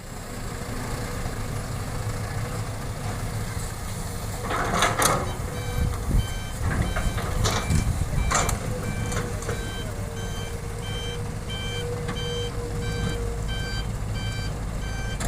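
Heavy diesel machinery running with a steady low rumble. A back-up alarm beeps at an even pace from about five seconds in, with a couple of short, loud hissing bursts around the same time.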